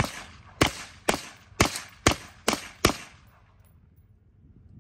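Seven rapid semi-automatic shots, about two a second, from a Stag Arms AR-15 firing .223 rounds through a Nelson Precision Little Spoon .22LR rimfire suppressor. Each shot is a sharp crack with a short tail, then the firing stops about three seconds in.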